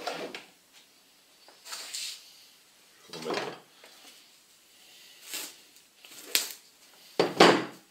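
Scattered handling noises on a table: about five separate short rustles and knocks, with a sharp click late on and the loudest knock near the end.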